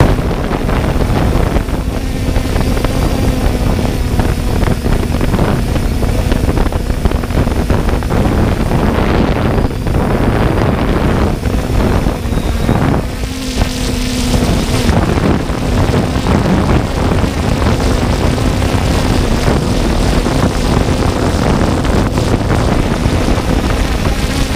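Camera drone's propellers and motors whirring with a steady hum, with wind buffeting the microphone.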